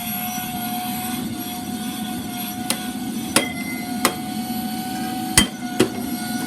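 Shark Rotator upright vacuum cleaner running with a steady motor hum. Five sharp knocks come in its second half, starting about two and a half seconds in.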